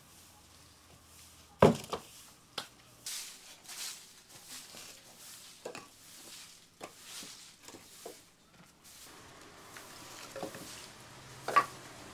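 Straw broom sweeping dry leaves across a tiled floor in short swishing strokes, with scattered light taps and a sharp click near the end. A single loud knock comes about a second and a half in.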